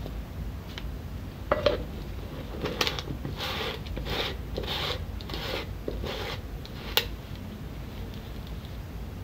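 Kitchen utensils being handled: a run of short rustling scrapes, about two a second, and one sharp click about seven seconds in.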